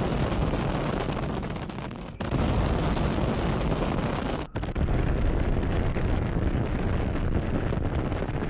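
Bomb explosions on the ground, a continuous heavy rumble of blasts one after another that changes abruptly twice, about two and four and a half seconds in.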